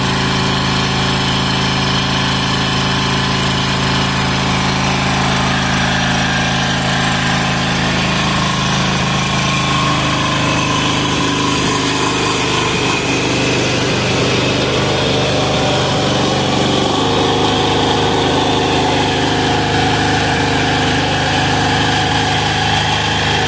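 186FA single-cylinder air-cooled diesel engine running steadily on filtered waste vegetable oil. Its note shifts slightly about seventeen seconds in.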